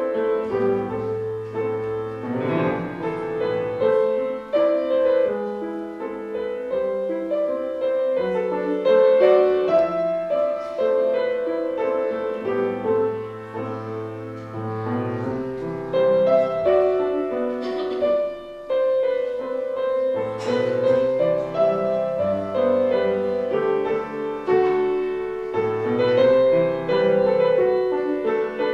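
A song played on piano: slow held chords over a moving bass line, with no singing.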